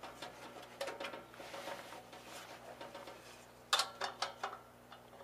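Phillips screwdriver turning screws out of the sheet-metal front of a Behmor 1600 roaster's chamber: light scraping and small metallic clicks, with a cluster of sharper clicks near the end.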